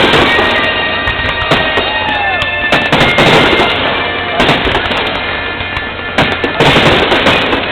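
Fireworks bursting again and again, with loud booms and crackle, over music.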